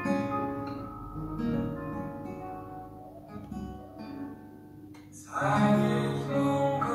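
Capoed acoustic guitar played through a chord progression, moving from A minor to F minor. It is fairly soft at first and grows noticeably louder and fuller about five seconds in.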